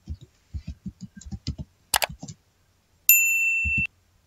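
Computer keyboard keys tapping as an email address is typed. About two seconds in there is one sharp click, and about three seconds in a bright electronic bell ding rings for just under a second: the sound effect of a subscribe-button overlay.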